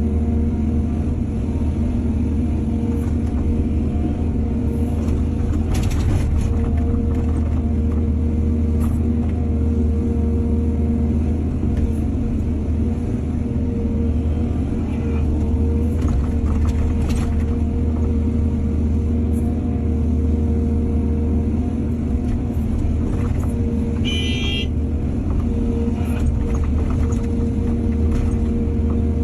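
Heavy diesel engine of an excavator running steadily at a constant pitch, with a few short clanks and one brief high-pitched tone in the later part.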